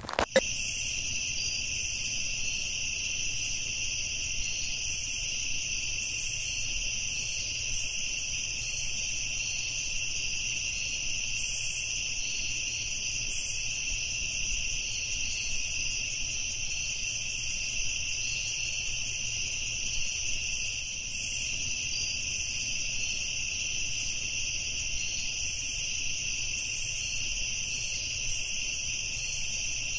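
Night-time insect chorus: a steady, continuous high chirring in two pitches that does not let up.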